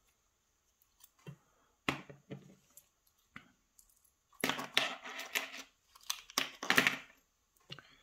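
Lock plug being slid out of its brass cylinder with a follower: a few separate small metal clicks, then a busier stretch of clicking and scraping through the second half.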